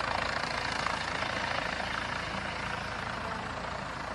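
Police helicopter flying low overhead together with a speedboat's engines at speed, a steady noisy engine and rotor sound.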